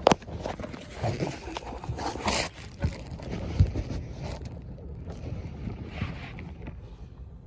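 Scattered knocks and rustling in a small fishing boat over a low, steady rumble, with wind on the microphone. There is a sharp knock right at the start and a louder burst of rustling about two seconds in.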